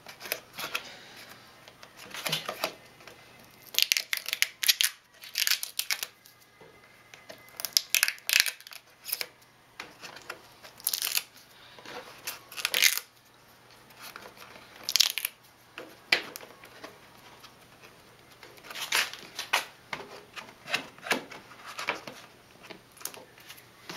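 Peelable rubber coating (Plasti Dip) being pulled and peeled off a dirt bike's plastic rear fender: irregular short bursts of tearing and crinkling.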